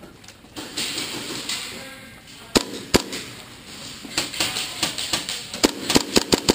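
Airsoft guns firing: two sharp cracks a couple of seconds in, then a quick string of shots near the end.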